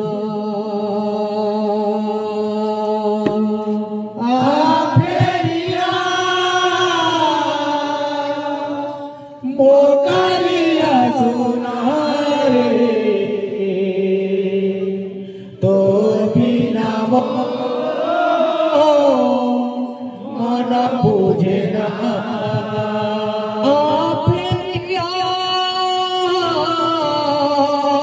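Kirtan singing: a devotional Odia song sung in a chanting style. It opens on a long held note, then goes in four long melodic phrases with gliding pitch, each followed by a short break.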